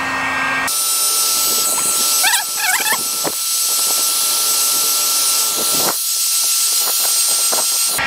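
Handheld heat gun blowing steadily with an airy hiss and a thin whine, heating a piece of PVC pipe until it softens. A short warbling squeak sounds about two seconds in, and a few light knocks come later.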